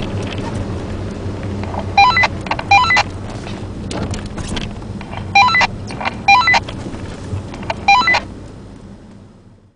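Ford Puma's 1.7 engine and running gear heard from inside the cabin as a steady low rumble, with several groups of short high chirps over it. The sound fades out near the end.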